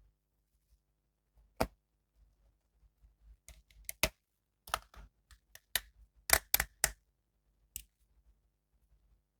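Irregular sharp clicks and snaps from handling a plastic action figure and its packaging, about a dozen of them, the loudest in a quick cluster about two-thirds through.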